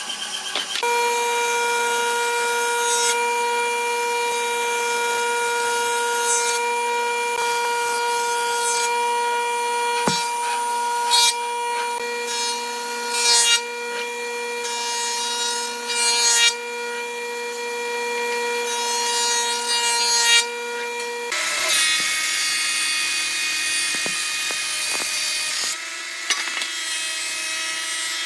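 Woodworking jointer running with a steady hum, with short louder rasping bursts every few seconds as boards are pushed across its cutterhead. About two-thirds of the way through it gives way to a thickness planer running and cutting a board fed through its rollers.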